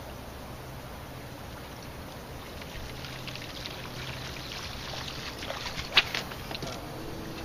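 Water lapping and splashing against the hull of a small boat, over a steady low hum, with a sharp knock about six seconds in.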